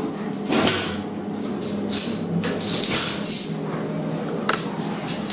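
Second-generation KONE EcoDisc lift in operation: a steady low hum with scattered clicks and short clattering, hissing noises.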